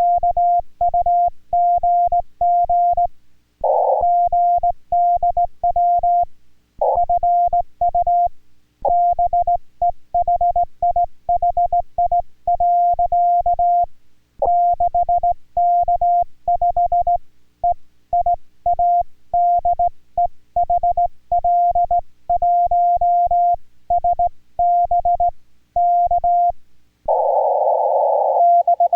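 Morse code (CW) from a ham radio transceiver: a steady pitched tone keyed on and off in quick dots and dashes, sending Korean-language Morse. A few rougher, buzzier stretches break in, the longest near the end.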